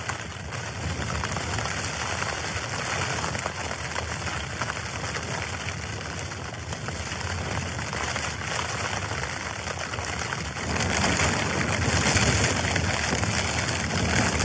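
Storm wind buffeting a Hilleberg Soulo tent, a steady rushing hiss and rumble on the tent fabric that gusts louder about two-thirds of the way through.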